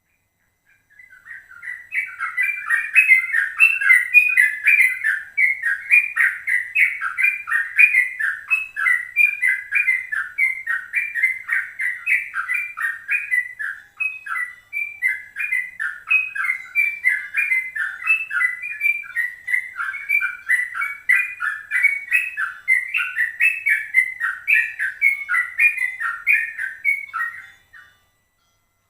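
Yellow-vented bulbul (trucukan) singing a long, unbroken run of quick chattering notes, the rapid continuous 'ropel' song played to provoke other trucukan into singing. It starts about a second in and stops shortly before the end, with a brief break midway.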